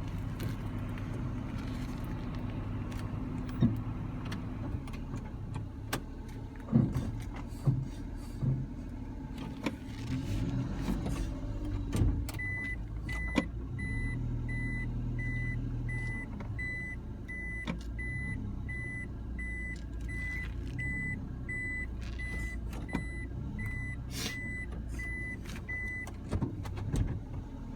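Suzuki Carry DA63T kei truck's 660 cc three-cylinder engine running steadily, with scattered knocks and clunks. From about halfway through, a high-pitched tone pulses on and off about one and a half times a second for some fourteen seconds, then stops.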